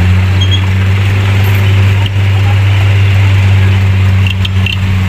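Light dump truck's diesel engine running at a steady pitch while the hydraulic hoist holds the bed tipped and its load of soil slides out.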